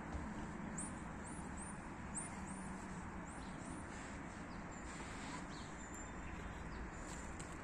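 Small birds chirping: a run of short, high chirps over the first three seconds or so, then scattered faint chirps, over steady low background noise.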